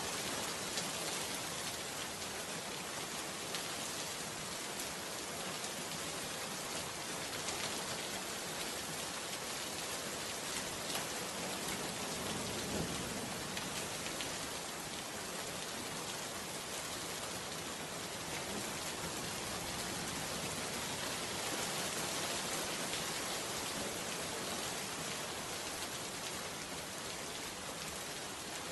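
Steady rain falling, an even hiss with faint scattered ticks of drops.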